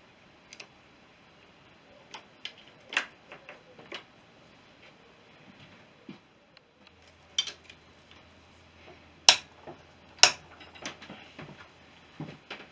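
Irregular metallic clicks and clinks of hand tools and small parts being handled during a motorcycle strip-down, with two sharp, louder knocks about nine and ten seconds in.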